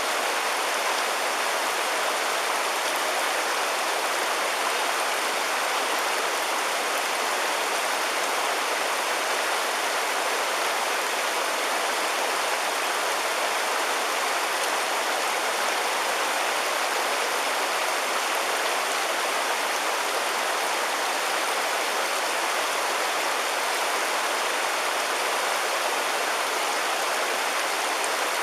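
River water rushing with a steady, even noise that does not change.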